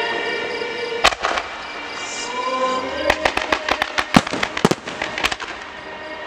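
Aerial fireworks going off: one sharp bang about a second in, then a rapid run of a dozen or so cracking bursts between about three and five seconds, over music playing with the display.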